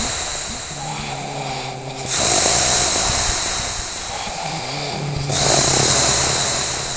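Loud, snore-like breathing noises: a hissing breath roughly every three and a half seconds, with a low hum between the breaths.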